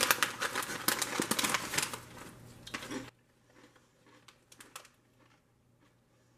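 Crisp packet crinkling and rustling as it is handled, dense crackling for about three seconds, then a sudden drop to near silence with a few faint ticks.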